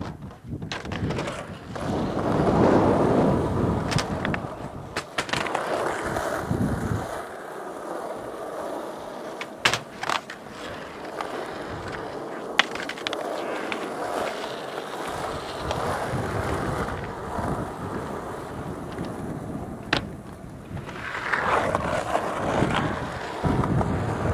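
Skateboard wheels rolling over concrete, with several sharp clacks of the board. The loudest clacks come about ten and thirteen seconds in.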